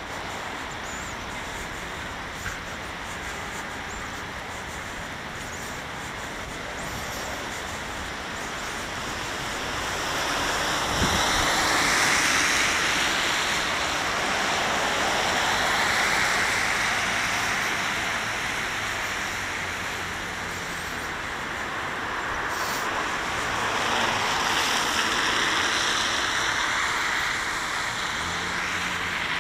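Street traffic on a wet road: vehicles driving by with a hiss of tyres on wet asphalt, swelling as they pass about ten seconds in and again later.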